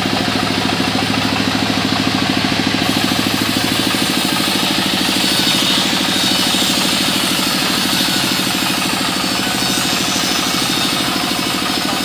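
Sawmill saw running steadily while ripping a squared timber lengthwise, a continuous machine drone with a fast low pulse. The cutting hiss grows brighter about four seconds in as the blade bites into the wood.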